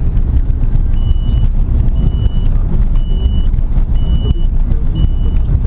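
Car driving, heard inside the cabin: a loud, steady low rumble of engine and road noise. From about a second in, a high electronic beep sounds about once a second.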